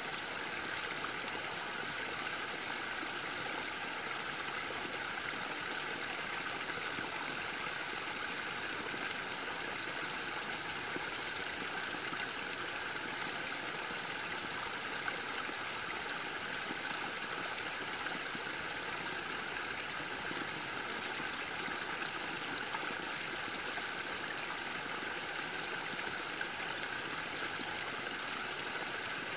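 Small spring-fed trickle of water falling over a mossy rock ledge and splashing into a shallow, stony pool: a steady babble with no breaks.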